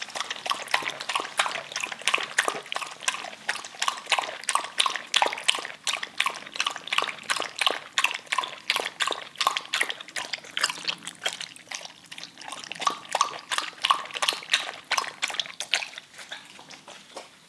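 Dog lapping water from a bowl: a quick, even run of wet splashy laps, about three or four a second, stopping near the end.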